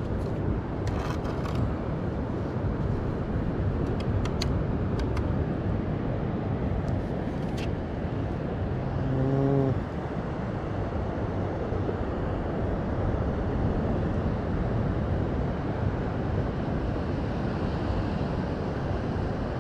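Steady low rumble of surf and wind on the microphone on the beach. A few sharp clicks come in the first eight seconds, and a brief low pitched hum lasting about a second comes about nine seconds in.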